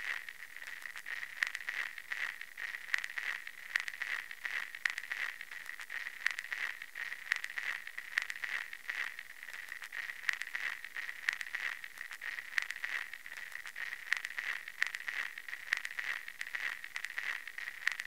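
Filtered white noise sound effect: a steady, narrow-band hiss with irregular crackles throughout.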